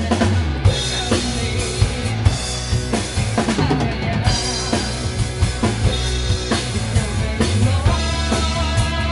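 Rock band playing an instrumental passage: a drum kit, with many kick and snare hits, over electric guitars.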